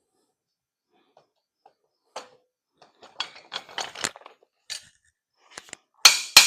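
Steel farrier's foot vise being dropped back onto an anvil stand, its hook brackets knocking and scraping into place. Scattered metal clicks and knocks build to two loud clanks near the end as it seats.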